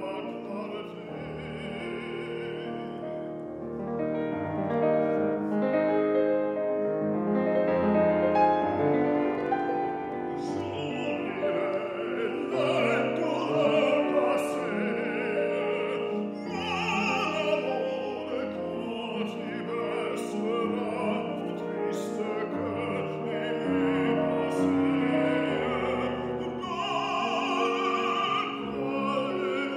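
Tenor singing a French art song with vibrato, accompanied on a Steinway concert grand piano. The music grows louder about four seconds in.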